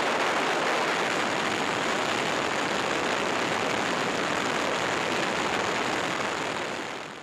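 Steady rushing noise of a helicopter heard from on board, with a faint high whine above it, fading out near the end.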